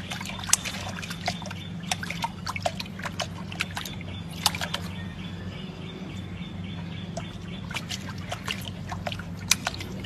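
Small irregular splashes and slaps of water as a puppy paws and dabs at the water in a stone pot, over a steady low hum.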